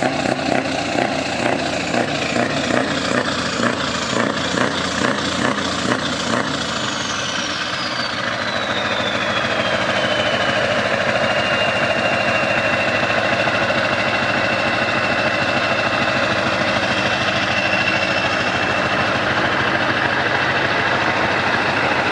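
Scania R500 V8 diesel truck engine running. For the first six seconds or so it pulses regularly, about twice a second. It then settles into a steady, slightly louder run, with a high whistle that falls in pitch and holds steady until near the end.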